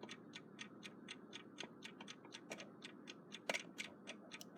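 Westclox Big Ben alarm clock movement ticking faintly and evenly, about five ticks a second, from its balance wheel and escapement running. A louder click about three and a half seconds in.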